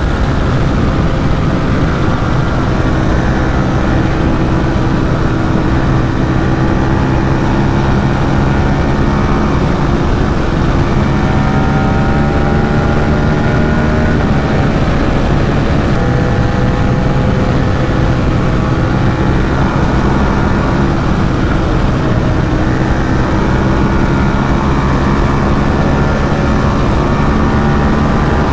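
Ducati SuperSport 950 S's 937 cc L-twin engine running steadily under way while riding, its pitch holding for a few seconds at a time and shifting up or down several times, over a constant rush of noise.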